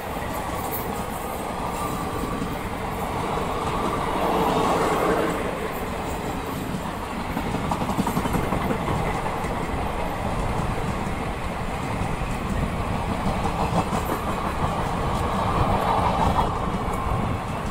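Train passing at speed on the main line: a continuous rushing rumble full of quick wheel clicks over the rails, swelling louder twice.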